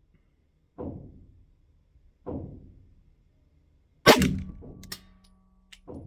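A slow string of 9mm pistol shots from a Glock 45, about five, with the one about four seconds in much louder and sharper than the rest. This is slow aimed fire, shooting a group to check the optic's zero.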